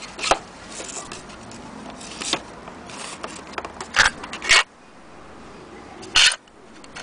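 Tools and a small metal tin being handled on a table: several short clatters and scrapes, the loudest about four seconds in and again about six seconds in.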